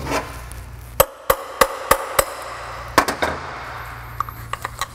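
Hammer striking a punch to drive the blower motor's shaft out of its plastic squirrel-cage fan: about seven sharp strikes in quick groups, between about one and three and a half seconds in.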